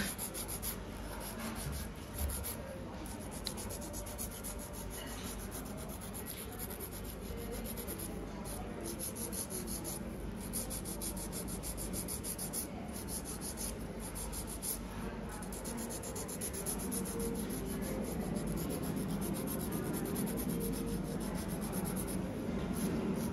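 A hand-held nail file rubbing back and forth over fingernails: steady scratchy strokes that grow a little louder toward the end.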